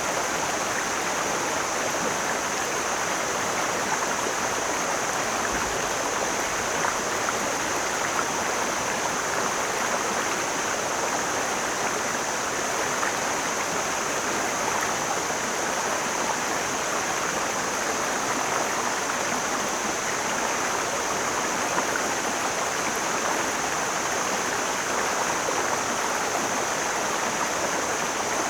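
Mountain stream flowing steadily, an even rushing of water with a steady high hiss above it.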